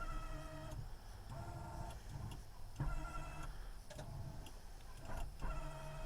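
An electronic beep-tone sounds four times, about 0.7 s on and 0.7 s off, each starting with a click, over a steady low hum inside the vehicle.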